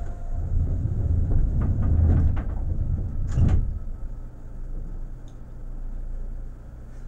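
Seibu 2000 series train's passenger doors sliding shut: a few rattling knocks, then one hard thud about three and a half seconds in as they close, over a low rumble from the stopped train.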